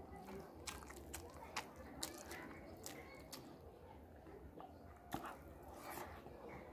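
Close-miked eating: a man chewing a mouthful of rice and fish curry eaten by hand, with short wet mouth clicks, several in the first three and a half seconds and a louder one about five seconds in.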